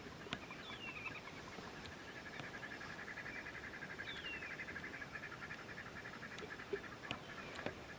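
Wild birds calling in the bush: a few clear whistled notes that fall in pitch, and a rapid, even trill running through the middle for about five seconds.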